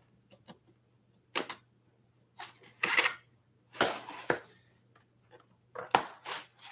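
Packaging being handled and pulled off the front of a boxed e-bike: several short bursts of rustling and crinkling, with a sharp click about a second and a half in and another near the end.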